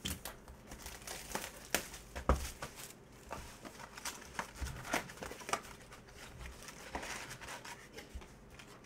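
Hands tearing open a Panini Prizm basketball retail box: crinkling shrink wrap and cardboard being torn and folded back, heard as scattered sharp crackles and rustles.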